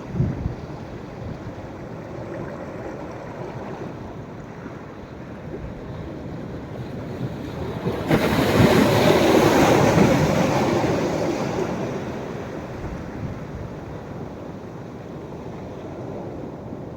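Sea surf washing steadily on the beach on a rising tide, with one wave breaking suddenly about halfway through, loud for a few seconds, then fading back to the wash. A brief gust of wind hits the microphone at the very start.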